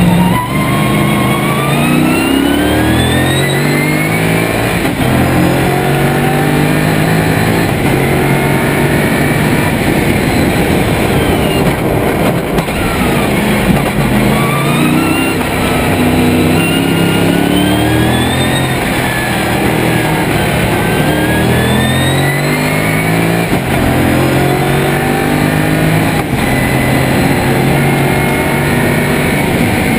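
Lotus Esprit V8 race car's engine heard from inside the cockpit, revving hard up through the gears: the pitch climbs again and again, dropping back at each upshift, with a run of falling revs a little before the middle.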